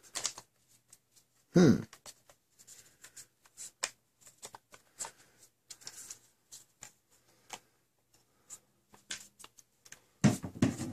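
Irregular small plastic clicks and scrapes of half-length foam darts being handled and pushed into a Nerf blaster's inline clip, a fiddly loading job with the blaster's restrictor peg still in place. A short vocal sound cuts in about a second and a half in, and another near the end.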